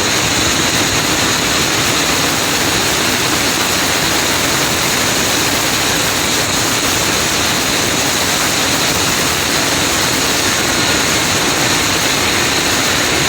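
Loud, steady roar of a car on the move: engine, tyre and wind noise that holds even, with no rise or fall in pitch.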